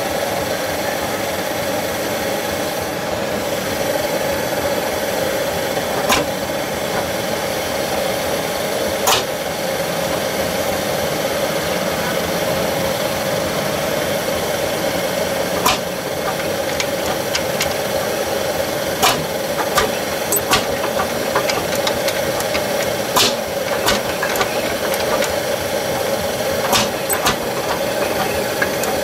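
Tractor engine running steadily, with sharp knocks or clicks now and then.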